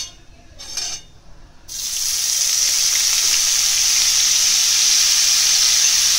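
Chopped onions hitting hot oil in a kadai: after a few faint clinks, a loud frying sizzle starts suddenly just under two seconds in and holds steady.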